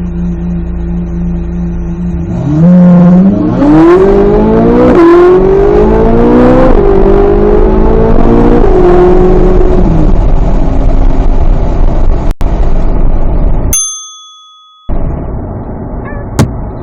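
Chevrolet C8 Corvette Z06's 5.5-litre flat-plane-crank V8 accelerating hard: the engine note climbs sharply through three quick upshifts, then falls as the throttle is lifted and settles back to steady cruising. Near the end the engine sound cuts out for about a second, leaving only a faint ringing tone.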